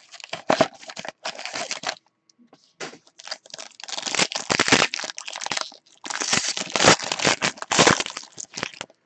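A cardboard trading-card box handled and opened, then a foil card pack torn open and its wrapper crinkled, in bursts of rustling and tearing with a short pause about two seconds in.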